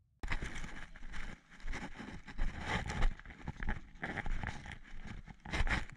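Irregular rustling and scuffing of a player on foot: footsteps on a woodland path, with clothing and gear rubbing and leaves brushing past, up close to the microphone. It starts suddenly just after the opening moment of silence.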